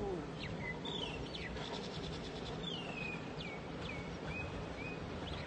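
Small birds chirping: a run of short calls that slide down in pitch, with a brief rapid trill about two seconds in, over a steady low background rumble.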